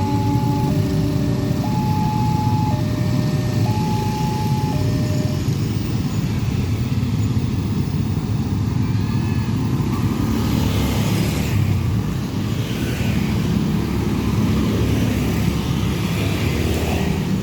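Railway level-crossing warning signal sounding an alternating high-low two-tone chime, about a second per tone, that stops about five seconds in, over the steady rumble of road traffic.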